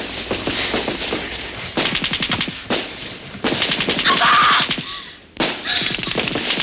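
Automatic gunfire in rapid bursts, dipping briefly about five seconds in. A child screams about four seconds in.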